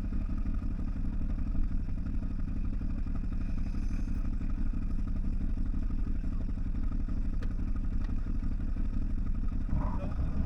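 CFMoto 1000 off-road vehicle's engine running steadily, without revving up or down.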